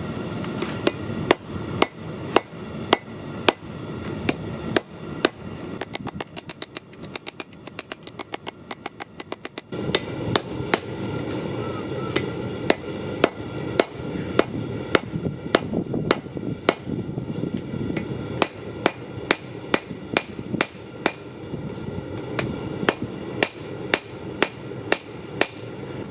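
Hand hammer forging 5160 high-carbon steel on an anvil: repeated ringing strikes about two a second, with a run of quicker, lighter taps about six to nine seconds in, over a steady low rumble.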